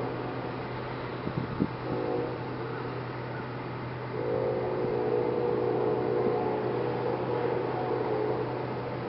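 Multi-chime air horn of Norfolk Southern GE ES44AC locomotive 8105 blowing a short blast about two seconds in, then a long blast of about four seconds: the close of a grade-crossing horn signal, over the steady hum of the passing train.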